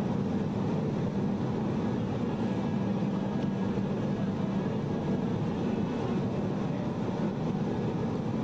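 Steady cabin noise inside a Boeing 737 airliner: its engines and the airflow make a constant rush with a low hum.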